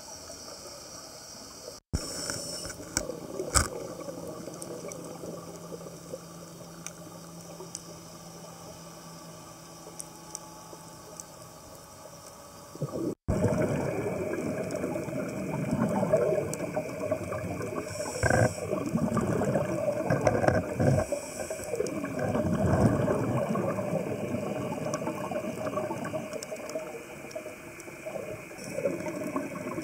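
Underwater sound on a scuba reef dive: the diver's regulator breathing and bubbles, with scattered clicks and crackle. It breaks off abruptly twice and is louder after the second break, a little under halfway through.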